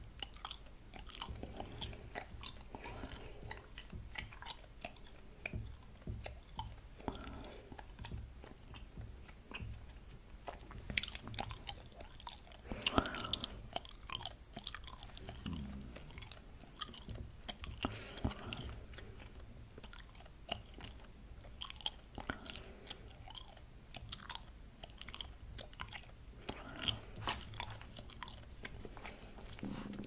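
Close-miked mouth sounds of chewing bubble gum: irregular wet smacks and sharp clicks, with a louder run of them about halfway through.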